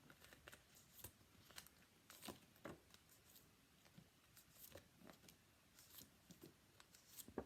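Faint rustles and soft taps of paper flashcards being handled and flipped one after another, coming at irregular moments about a second apart.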